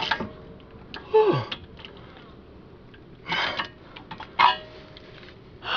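A man grunting and breathing hard with effort, with a few sharp clicks of metal, while forcing a rear brake caliper piston back into its bore by pushing and turning it at the same time. One grunt about a second in slides down in pitch.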